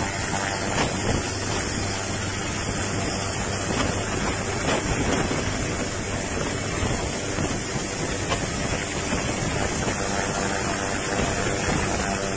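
Steady rushing noise of muddy floodwater flowing through the street, mixed with wind on the microphone.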